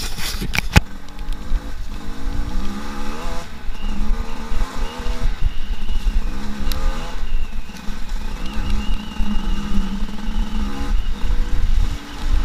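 Enduro motorcycle engine revving up and falling back as the bike is ridden along a muddy track, with a few sharp knocks in the first second.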